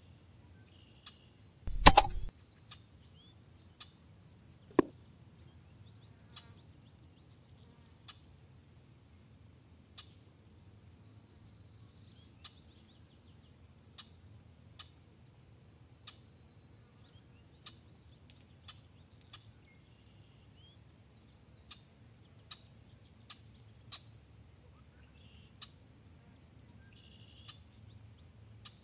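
A shot from an EDgun Leshiy 2 PCP air rifle about two seconds in: a loud, sharp crack with a brief clatter after it, followed about three seconds later by a second, shorter sharp snap. Birds chirp and faint clicks sound now and then throughout.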